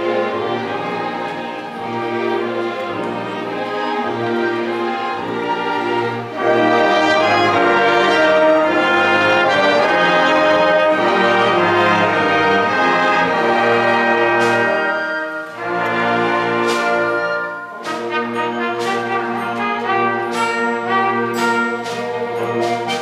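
Full symphony orchestra playing with the brass to the fore. The music swells louder about six seconds in, and in the last few seconds sharp percussion hits mark the beat.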